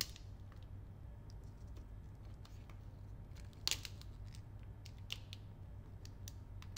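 Thin plastic protective film being peeled off a phone and handled: scattered soft crackles and clicks, the loudest about halfway through, over a low steady hum.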